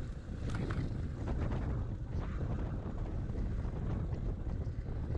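Wind buffeting the microphone of a camera on a moving bicycle, a steady low rumble. There are a few short clicks in the first two seconds.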